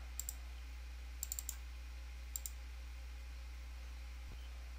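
Computer mouse clicks: a pair just after the start, a quick run of four about a second in, and another pair a little past two seconds in, over a low steady hum.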